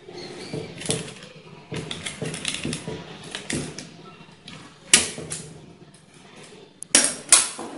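A cutter blade prying and scraping at the plastic top cover of a sealed lead-acid UPS battery, with scattered small clicks and scrapes. The glued cover snaps loose with a sharp crack about five seconds in, and two more sharp clacks follow near the end.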